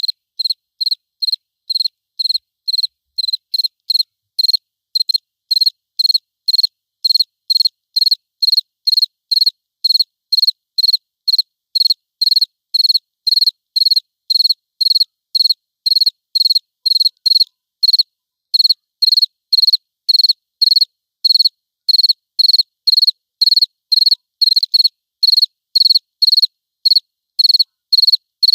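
A cricket chirping steadily, about two short chirps a second, evenly spaced, with silence between chirps and no background noise.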